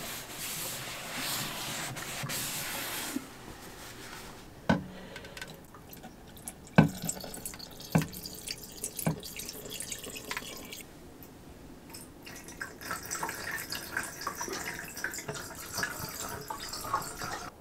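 RV antifreeze poured from a plastic measuring cup into a stainless sink drain and a shower drain, trickling and splashing. A few sharp knocks come in the middle, from the cup and jug being handled.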